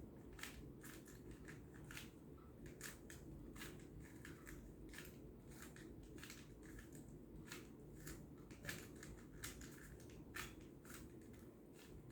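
Faint, irregular plastic clicking of a Rubik's cube's layers being turned by hand, a couple of clicks a second.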